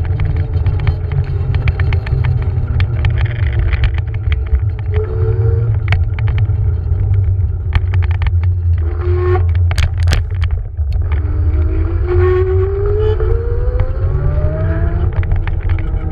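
Electric scooter riding on asphalt: a steady low rumble of wind and tyres, with rattling knocks from the scooter. The motor's whine drops off about ten seconds in, then rises steadily in pitch as the scooter speeds up again.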